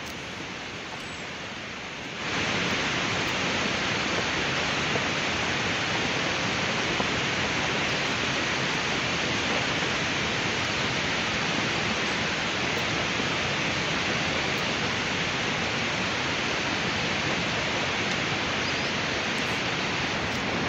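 Steady rushing roar of a landslide, with muddy debris and water pouring down a hillside. It gets louder about two seconds in and then holds steady.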